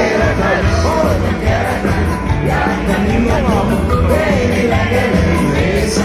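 Loud rock music with singing over a steady pulsing beat.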